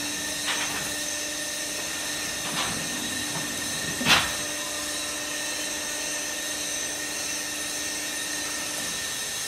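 Steady hum and hiss of block-making machinery running, with a single sharp metallic knock about four seconds in and two fainter ones before it.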